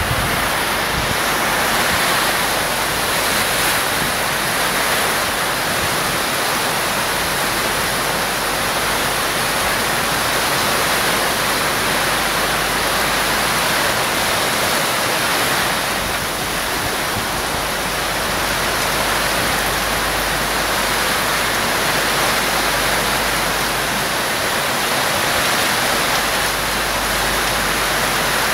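Heavy rain pouring steadily in a windy storm.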